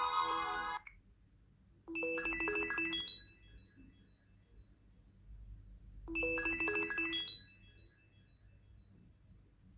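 Samsung Galaxy Gio phone playing one of its preset tones: a short jingle of quick notes with fading high echoes, heard twice about four seconds apart. A different, fuller tone ends just under a second in.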